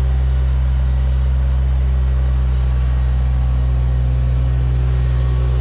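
An engine idling steadily, a deep even drone.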